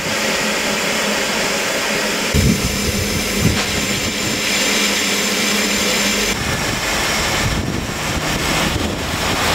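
Steam hissing steadily from the standing narrow-gauge Hunslet tank locomotive Blanche, with two brief knocks a few seconds in.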